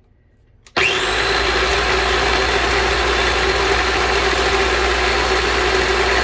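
A small Ninja food processor's motor clicks on about a second in and runs at a steady speed, blending a batch of garlic scape pesto smooth.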